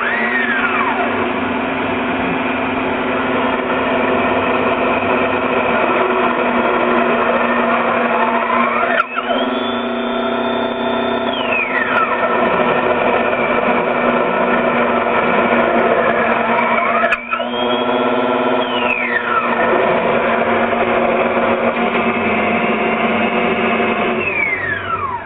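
Grizzly G8976 three-wheel bandsaw running loud under a steady hum, with a high whining tone that sweeps up, holds and falls back twice. It is a terrible noise, the sign of the blade stalling in the cut and no longer cutting.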